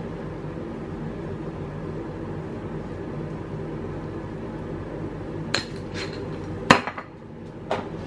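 A few sharp clicks and knocks from a small plastic seasoning jar and its lid-mounted spoon being handled and put away, four strikes in the second half with the loudest about two-thirds through, over a steady low hum.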